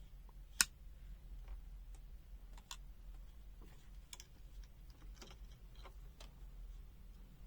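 Faint, scattered clicks and taps of test gear being handled, with one sharper click about half a second in, over a low steady hum.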